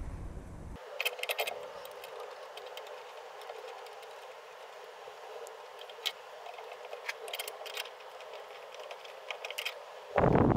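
Scattered light clicks and taps as a small metal fuel pressure regulator is handled and held up against the car's radiator support, over a faint steady hiss.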